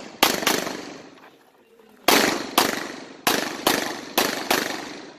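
Glock pistols firing: a quick pair of shots, a pause of about a second and a half, then about six more shots in a steady string, each with a ringing echo tail.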